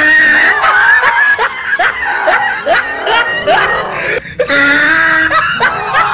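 Music mixed with voices laughing and screaming, with short rising yelps repeating about every half second.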